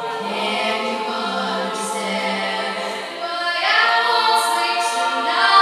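An a cappella group of men and women singing with no instruments: backing voices hold sustained chords under a female lead. The voices swell louder about three and a half seconds in.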